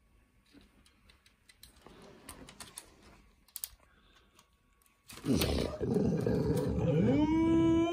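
Faint rustling and small taps, then about five seconds in a loud animal growl that turns into one long yowl, rising in pitch, holding and sliding down again.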